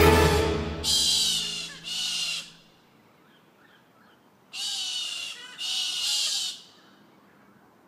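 Harsh animal screeches in two pairs: a longer and a shorter screech about a second in, then two more about four and a half seconds in.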